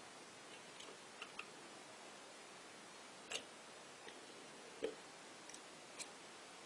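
About eight small, sharp clicks and taps at irregular intervals over a faint steady hiss, the loudest about three and a half and five seconds in.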